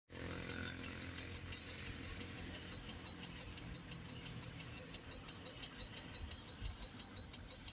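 A truck's diesel engine idling, a low steady hum, with a faint fast regular ticking over it.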